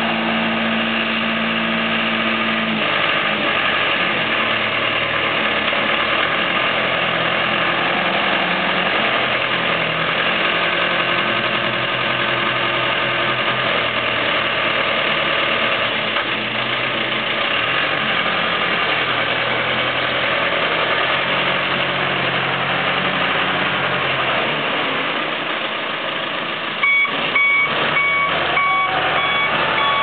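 John Deere 300D backhoe loader's diesel engine running under load, its pitch shifting as the loader is worked and the machine moves off. Near the end a reversing alarm starts beeping steadily over the engine.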